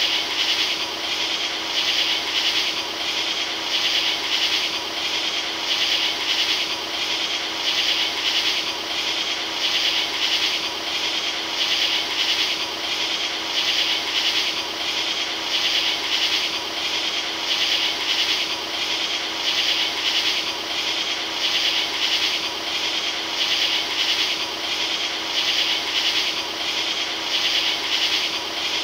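Steady rhythmic rasping hiss, pulsing about four times every three seconds, over a faint steady hum.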